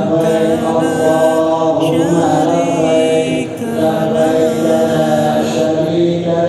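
Islamic devotional chanting in long held notes that slide from pitch to pitch, going on without a break apart from a short dip about halfway through.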